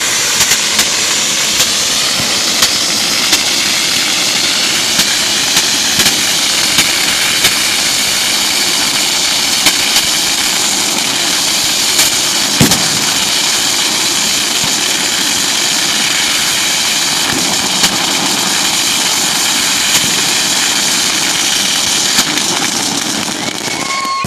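Ground fountain firework spraying with a steady, jet-like hiss, with sharp pops scattered through it every second or so and one louder bang about halfway through.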